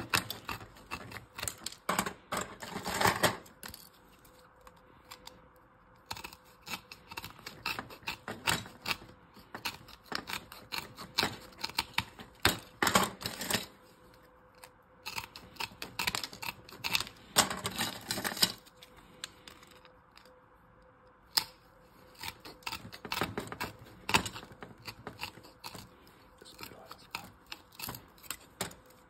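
Aviation tin snips cutting the gold edge-connector fingers off RAM memory sticks: runs of sharp clicks and snaps as the blades bite through the circuit board, in bursts with short pauses between.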